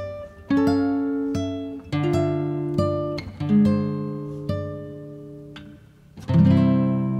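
Solo Chinese plucked zither music: single plucked notes and short phrases, each left to ring and fade, then a loud low note about six seconds in that rings on.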